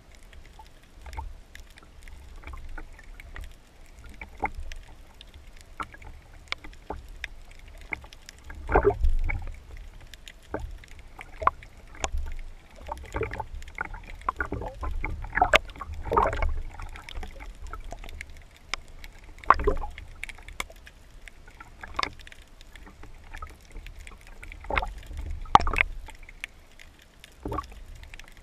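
Water sloshing and gurgling around a camera on a wooden speargun held just under the sea surface, heard through the camera's housing as a low rumble with irregular clicks and several louder surges.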